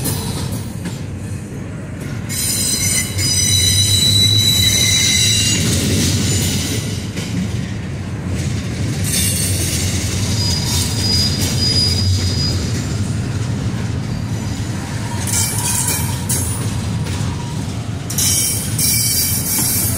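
Double-stack intermodal freight train rolling past: a steady rumble of the well cars' wheels on the rails, with high-pitched wheel squeal coming and going, loudest a few seconds in and again near the end.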